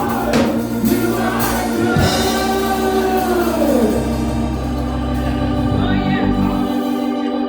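Live gospel worship music: sustained organ chords over a steady bass, with a voice sliding through a wordless melodic line that fades about four seconds in.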